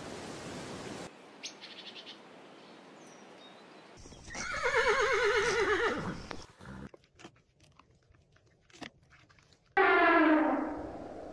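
Horse whinnying twice: a long, shaky call about four seconds in that falls in pitch, and a second falling whinny near the end. Scattered clicks and crunches sound between the calls.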